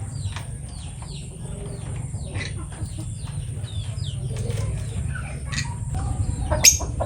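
Lovebird chirping: a run of short, quick chirps that slide downward in pitch, with a sharp click near the end, over a steady low hum.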